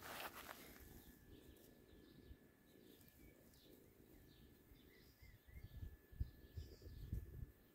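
Near silence with faint distant bird chirps, a short rustle at the start and a few low bumps near the end.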